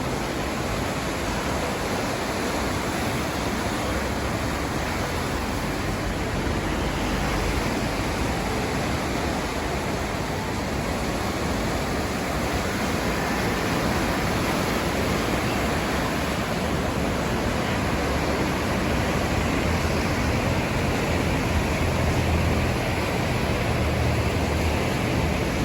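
Steady rushing noise of sea surf and wind, with no distinct wave breaks standing out and slightly louder low rumble near the end.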